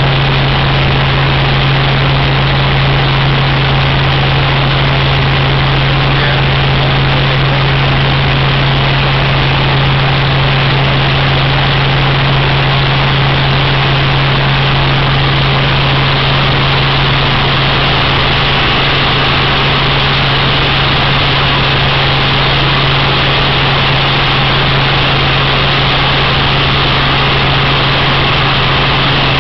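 Small helicopter in flight, heard from inside the cabin: the engine and rotors make a loud, steady drone, a low hum under an even rushing noise, unchanging throughout.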